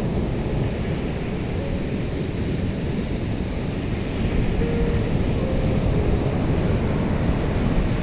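Ocean surf: a steady, dense rush of breaking waves that swells a little about halfway through.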